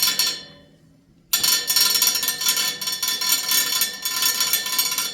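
The steel blades of a heat-powered stove fan, spinning fast, clatter against an object held into them. A short metallic rattle at the start dies away, then from about a second in there is a continuous rapid metallic clatter.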